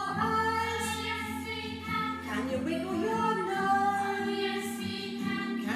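A woman singing a children's action song along with a recorded backing track of sung voices and accompaniment.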